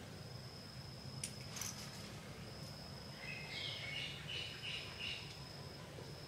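Insects trilling on one steady high note that breaks off now and then, with a bird giving a run of short chirps partway through and a couple of faint clicks near the start.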